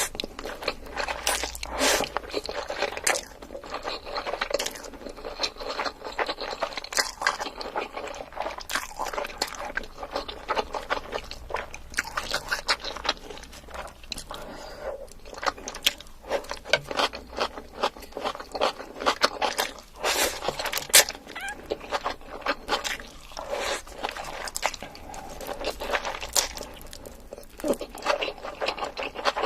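Close-miked eating: a person chewing and biting food, with a continuous run of crunches and wet mouth clicks.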